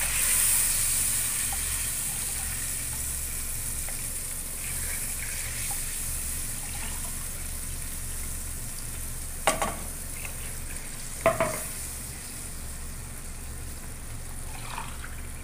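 Hot fried spice masala sizzling in a wok as bone stock is poured in from a cup. The sizzle is loudest at the start and slowly dies down as the liquid fills the pan, with two sharp knocks about nine and a half and eleven seconds in.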